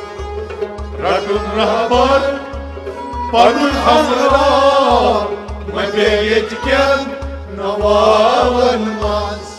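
Kashmiri folk song: male voices singing long, bending phrases, with bowed Kashmiri sarangis playing along and a steady low drum beat underneath.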